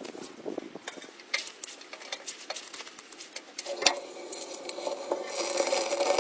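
Irregular small clicks and knocks of objects being handled. About four seconds in, a steady low hum comes in, joined by a hiss a second later.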